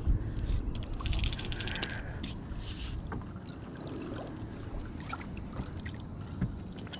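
Steady low rumble of wind and water around a small fishing boat, with scattered small clicks and knocks, a cluster of them about one to three seconds in.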